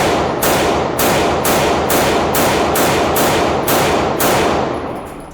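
Pistol fired rapid fire, about nine shots roughly half a second apart, each crack trailing off in a long echo, the string stopping about four seconds in.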